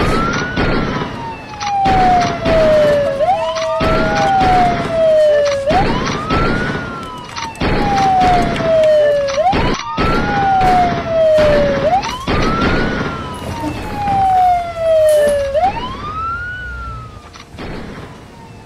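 Police siren wailing, each cycle a quick rise in pitch followed by a slower fall, repeating about every three seconds and growing fainter near the end. Scattered sharp knocks sound over it.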